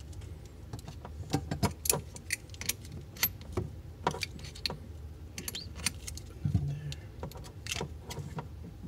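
Brass compression fittings clicking and clinking as the nut of a supply hose is threaded by hand onto a brass tee adapter: irregular small metallic taps, a few each second.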